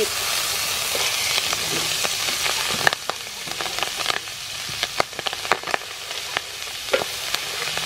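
Clam meat sizzling in hot oil as it is dropped into a frying pan, the sizzle loudest for the first three seconds and then easing. A metal spatula clicks and scrapes against the pan as the meat is stir-fried.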